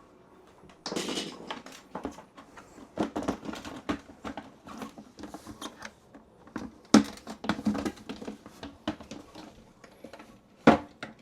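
Plastic bidet seat being handled and fitted onto its toilet mounting: irregular clicks, knocks and rustling, with sharper knocks about seven seconds in and again near the end.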